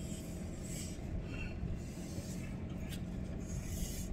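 Steady low road and engine noise heard from inside a moving car's cabin, with a few faint scratchy rubs.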